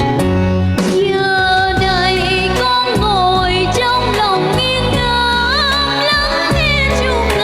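A young girl singing a Vietnamese song over an instrumental backing track; her voice comes in about a second in and wavers with vibrato on the held notes.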